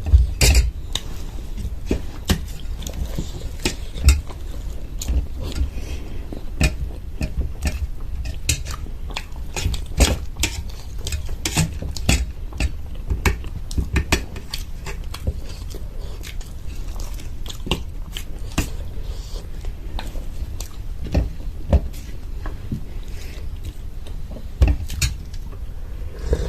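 Eating sounds: biting and chewing of homemade samosas, with frequent short clicks and clinks of dishware throughout.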